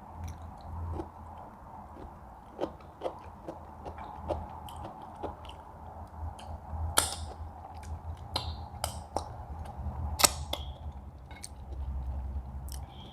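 Eating sounds: chewing, with many small sharp clicks scattered throughout and two louder clicks about seven and ten seconds in, over a steady low background hum.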